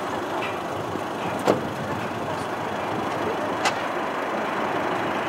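McDonnell Douglas MD-11 freighter's three jet engines at takeoff power during its takeoff roll: a steady rushing noise that slowly grows louder. Two brief sharp clicks come about one and a half and three and a half seconds in.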